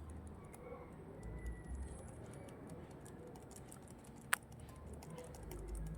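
Faint, irregular clicking of computer keys, with one sharper click about four seconds in.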